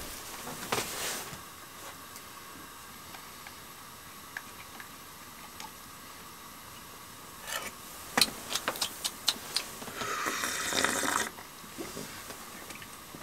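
Propane heater-stove burner hissing steadily. About eight seconds in comes a run of light clinks and taps, and about ten seconds in a short rustle.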